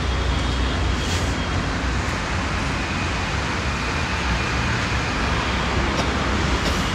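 Steady road traffic noise with a heavy low rumble, even and unbroken throughout.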